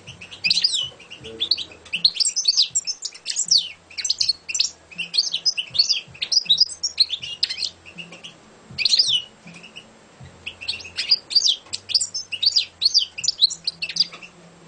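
Caged European goldfinch singing: fast runs of twittering and trilled notes in phrases a second or two long, broken by short pauses.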